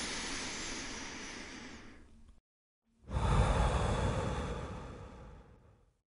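Two whoosh sound effects for the title cards. The first is already sounding and fades out, stopping about two seconds in; the second, louder and with a deep rumble underneath, starts about three seconds in and fades away by the end.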